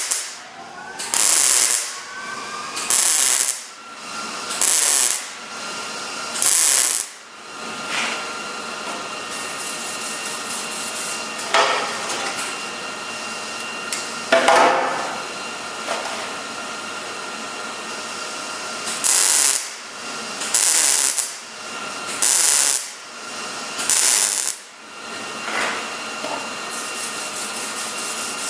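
Welder laying short stitch welds on sheet metal: a series of crackling bursts of under a second each, five in a row, then a pause broken by two brief sharp sounds, then four more bursts. A faint steady whine runs underneath.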